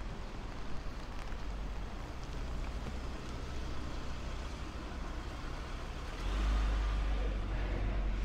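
Road traffic on a town street: a steady low rumble of passing vehicles that grows louder about six seconds in as a heavier vehicle comes close.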